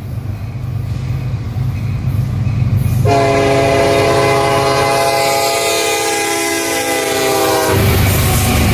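Diesel freight locomotive's engine rumbling and growing louder, then one long blast of its multi-chime air horn, a chord of several notes starting about three seconds in and lasting nearly five seconds, after which the engine rumble carries on.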